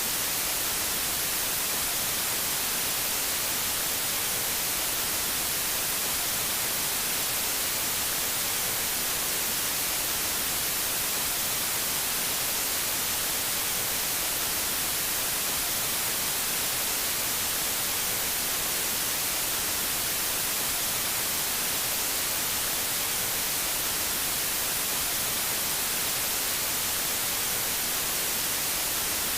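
Analog TV static: a steady, even hiss of white noise, brightest in the high end, with no change in level.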